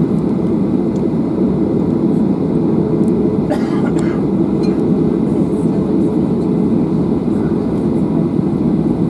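Steady low rumble inside the cabin of a Boeing 737-800 taxiing, its CFM56 engines at low taxi thrust, heard from a window seat over the wing.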